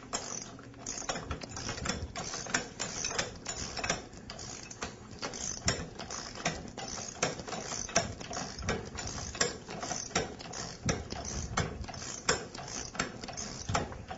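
Socket ratchet clicking in quick runs of strokes as it spins the 1-1/16-inch nuts down the tie rods of a waterjet intensifier's end bells. The nuts are only being run down snug, not yet torqued.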